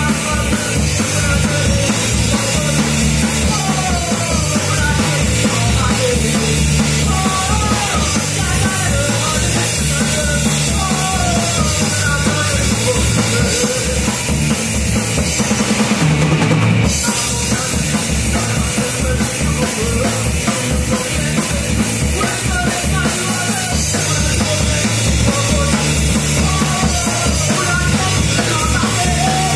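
Live rock band playing loud: electric guitars, bass and a drum kit driving a steady beat, with a wavering lead melody over the top.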